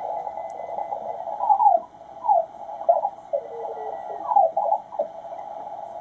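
Ten-Tec Paragon 585 HF transceiver's receiver audio: a narrow band of hiss crossed by several brief whistling tones that glide in pitch as the tuning knob sweeps across stations in the 40-metre band.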